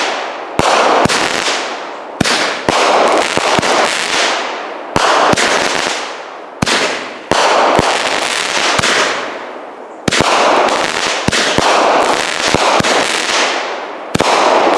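Consumer firework cake firing. Sharp reports come every one to two seconds, each followed by a loud hissing, crackling tail that fades away.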